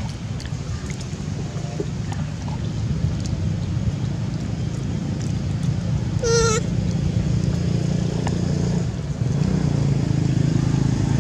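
A baby macaque gives one short, wavering high-pitched squeal about six seconds in. Under it runs a steady low engine hum from nearby traffic, which gets louder near the end.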